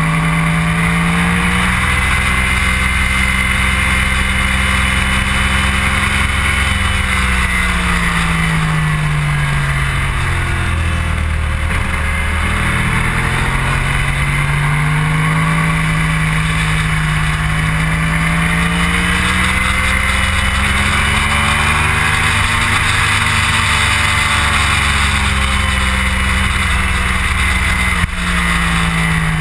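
Motorcycle engine running hard on a race track, its pitch slowly falling and rising again twice as the rider rolls off and gets back on the throttle, over a steady rush of wind on the bike-mounted microphone. A brief click near the end.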